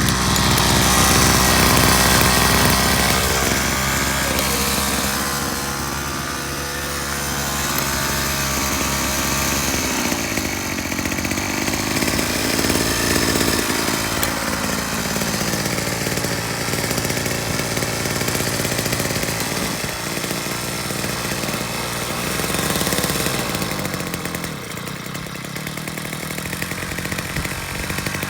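Gas-powered jackhammer running and hammering continuously as it drives an 8-foot grounding rod into hard soil, its engine speed shifting about ten seconds in and again a few seconds later.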